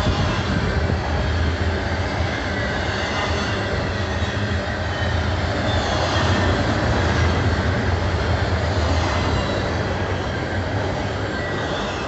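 Double-stack intermodal freight cars rolling past at speed: a steady rumble and rattle of steel wheels on rail, with a faint high wheel squeal. It eases a little near the end as the last car passes.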